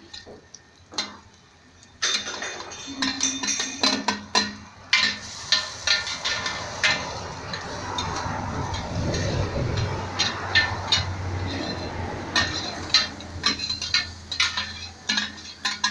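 Two metal spatulas clinking and scraping rapidly against a large shallow steel pan as fried egg, shrimp and tofu are chopped and stirred. There are only a few clinks at first; from about two seconds in they come thick and irregular.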